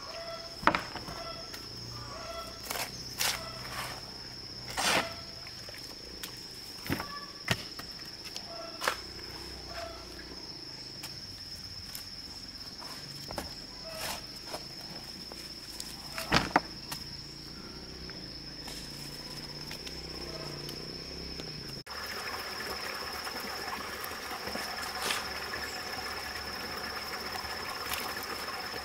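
A steady high-pitched trill of insects, with a metal digging tool knocking sharply into soil and stones every second or few during the first two-thirds, and a few short chirps.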